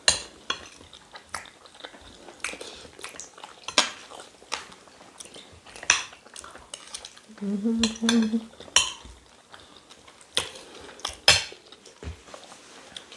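Spoons clinking and scraping against plates in irregular sharp clicks as two people eat rice and beans. A short hummed "mm" comes about seven seconds in.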